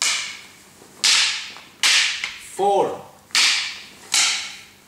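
Arnis sticks striking each other: five sharp clacks at uneven spacing of roughly a second, each ringing out in the hall's echo.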